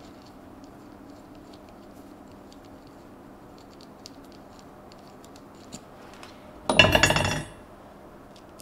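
Hand threading work with an M6 tap: faint scattered clicks for most of the time, then a loud metallic clatter lasting under a second about seven seconds in, metal tools or parts knocking together.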